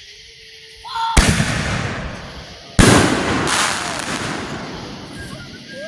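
Consumer firework going off: two loud bangs about one and a half seconds apart, each followed by a long fading rush of noise.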